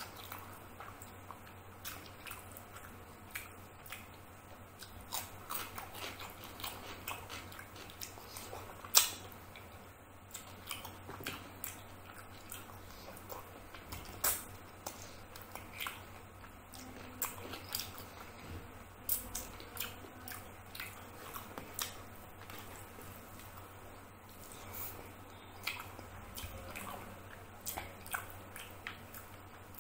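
Close-miked eating of rice and chicken curry by hand: chewing and wet mouth clicks, with the squish of fingers working the rice. Scattered sharp clicks throughout, the loudest about nine seconds in and another about fourteen seconds in.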